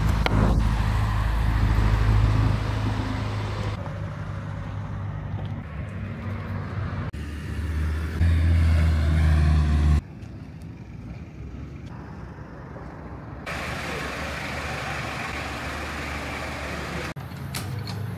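Motor vehicle engines running and street traffic noise, in a string of short cuts. A loud low engine drone runs for about two seconds before stopping suddenly about ten seconds in.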